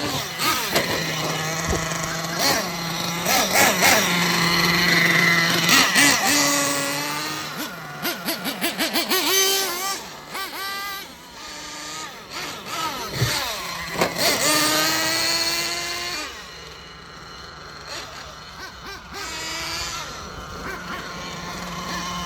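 Thunder Tiger Sledgehammer S50 nitro RC monster truck's small glow engine, running on 25% nitro fuel, revving up and down in bursts as it drives. About eight seconds in there is a quick run of throttle blips, and its pitch sweeps up sharply again near the middle.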